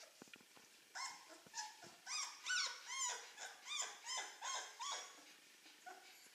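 Young Czechoslovakian wolfdog puppy whining: a quick run of about a dozen short, high cries, each rising and falling in pitch, lasting about four seconds.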